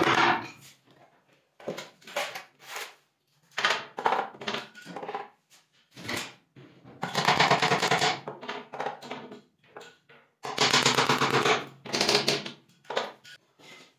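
Hammer driving nails into particleboard cabinet panels: irregular bursts of sharp taps, some single and some in quick runs lasting a second or more.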